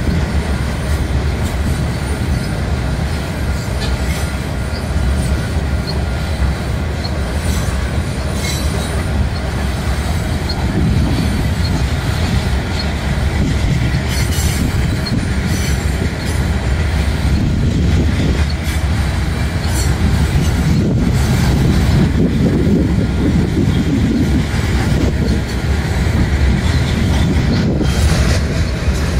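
Freight train of open hopper cars rolling past: a loud, steady rumble and clatter of steel wheels on the rails.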